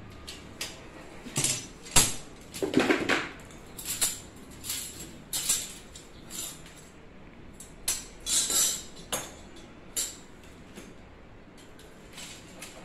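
Stainless steel rack parts clinking, rattling and knocking as they are handled and shifted on a hard floor, in irregular bursts with the sharpest knock about two seconds in.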